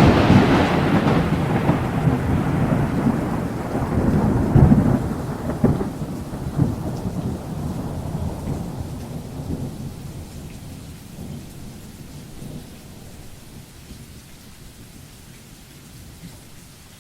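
Thunder: a loud crack just at the start, then long rolling rumbles that swell again a few seconds in and die away over about ten seconds, with rain hissing steadily underneath.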